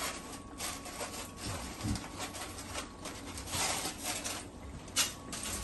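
Aluminium foil crinkling as it is peeled back off a baking tray, in irregular rustles, with one sharp click near the end.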